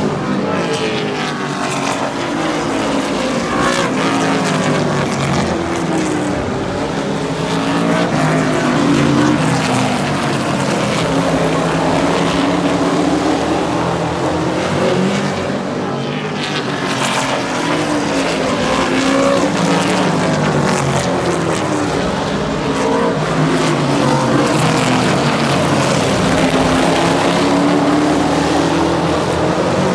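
Engines of two racing super trucks running nose to tail around an oval, the sound swelling and falling in pitch as they pass close about every fifteen seconds, rising and dropping as they lift and accelerate through the turns.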